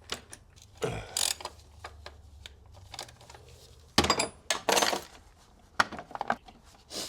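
Metal clinks and clatters of tools and parts being handled and set down, a few separate knocks with the loudest about four to five seconds in.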